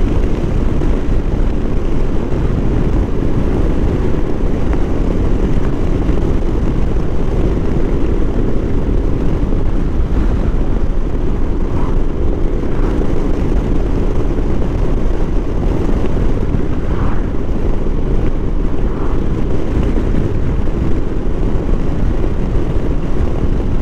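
Motorcycle under way at a steady cruising speed, picked up by a camera mounted on the bike: engine drone and wind rush blend into a loud, even low rumble with no change in speed.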